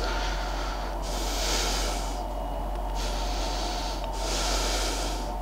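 A man breathing through his nose, a few slow breaths about every second and a half, picked up close on a clip-on lapel mic over a low steady hum.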